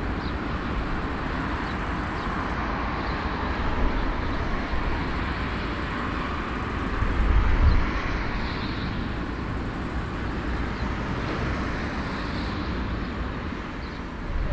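Steady roar and rumble of aircraft engines, swelling briefly about seven seconds in and then settling back.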